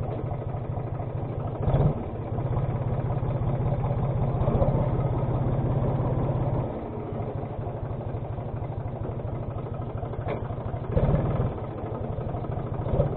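New Holland 54C tractor's diesel engine running steadily, louder for a few seconds and then dropping back to a lower, idle-like level about halfway through.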